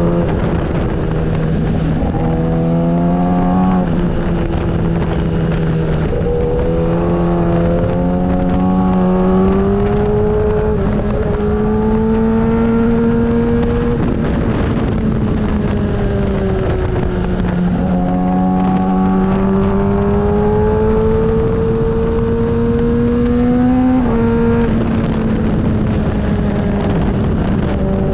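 Motorcycle engine under way, its pitch climbing slowly with the throttle and dropping sharply at gear changes several times, over a steady rumble of wind noise.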